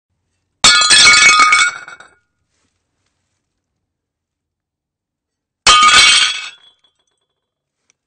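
Plates smashing, twice: a crash with shards clinking and ringing for about a second and a half, then a second, shorter smash about five seconds later.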